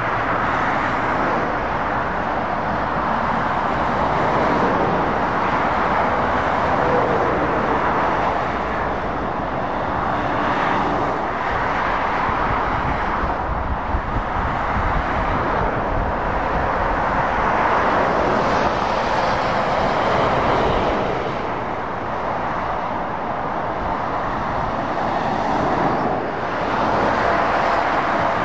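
Steady road traffic noise from lorries and cars passing on a wet dual carriageway. Tyre hiss mixes with the rumble of diesel engines, swelling and easing as vehicles come and go.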